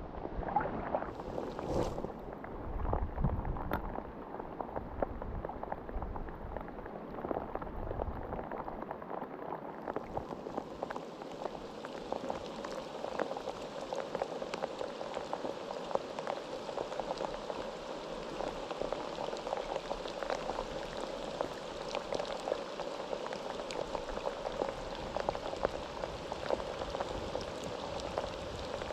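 Rain falling steadily, a dense crackle of many small drops, with a few low thumps in the first few seconds.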